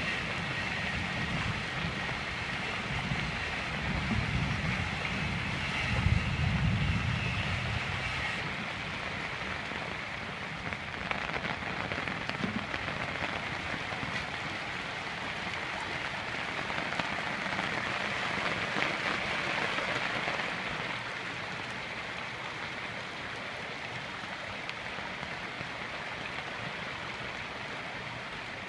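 Steady hiss of rain together with muddy floodwater rushing over rocks and ground, with low rumbling during the first eight seconds.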